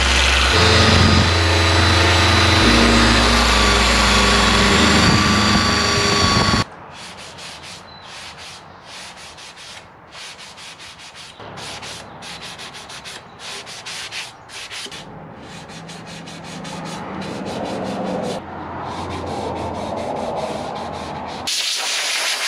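A power sander, an angle grinder with a sanding disc, runs against carved wood and stops abruptly about six seconds in. Rapid hand-sanding strokes follow as a sanding sponge rubs back and forth over the wood. Near the end a hiss of compressed air from a blow gun begins.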